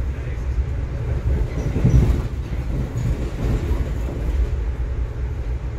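Freight train rolling past, its cars rumbling over the rails, with a louder clunk about two seconds in.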